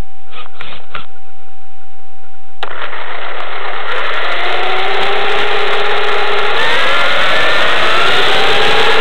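A steady high tone and three short clicks. About two and a half seconds in, a loud rush of noise starts, and the whine of a Novak HV Pro 5.5 brushless motor rises in pitch as the RC car accelerates, then levels off. It is heard from a camera mounted on the chassis.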